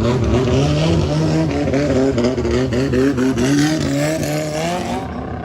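Thai longtail racing boat engine revving loudly, its pitch rising and falling in quick repeated blips, then dropping off about five seconds in.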